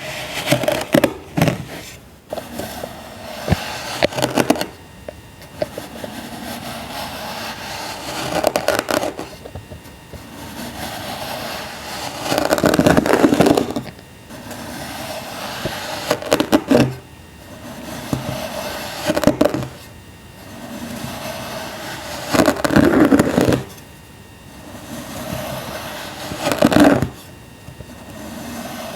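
Packed sand being cut with a tool, crunching and crumbling in repeated bursts every few seconds, with softer gritty scraping between the cuts.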